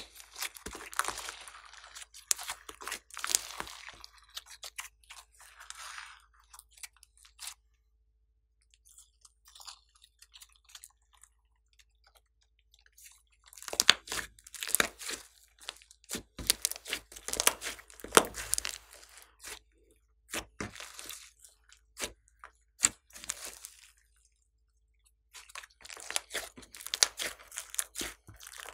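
Hands squishing, stretching and folding a large lump of glossy slime, making wet clicks and crackles. The sound comes in runs, with a pause of several seconds about a quarter of the way in and a shorter one near the end.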